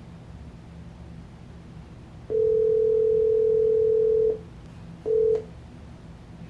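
Telephone ringback tone played through a small speaker: one steady two-second ring about two seconds in, then a brief clipped burst of the same tone about five seconds in. The outgoing call is ringing unanswered and is about to go to voicemail.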